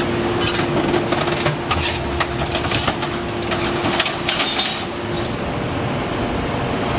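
YDJ-6300 hydraulic scrap-metal shear baler at work: scrap metal clanks and cracks repeatedly as it is pressed and sheared over a continuous machine noise, and a steady hum stops about five seconds in.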